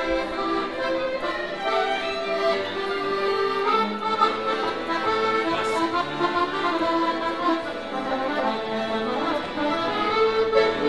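Accordion and violin duo playing a folk tune live, the accordion carrying the melody in sustained notes.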